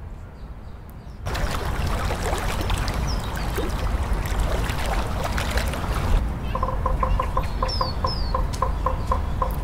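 Outdoor ambience that jumps about a second in to a loud rushing hiss, with a few high bird chirps over it. From about six seconds the hiss drops away, and a bird gives a rapid run of short, even notes, about four a second.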